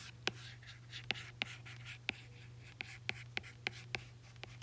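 Stylus tip tapping and sliding on a tablet's glass screen in quick short strokes, drawing fur. It makes a string of sharp clicks, a few a second, with soft scratching between, over a steady low hum.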